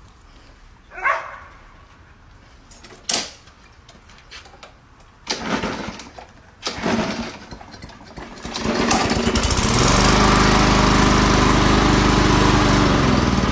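Craftsman M210 push mower's small gas engine being pull-started: a few knocks, then two short bursts as it fires and fails to catch. About eight seconds in it catches and runs steadily and loudly, its pitch dropping a little near the end.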